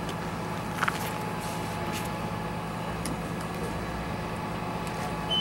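Engine idling steadily, with two sharp clicks just under a second in.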